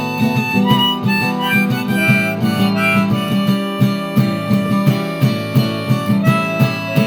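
Instrumental music with no singing: a plucked-string accompaniment in a steady rhythm, with a melody of held notes that step up and down above it.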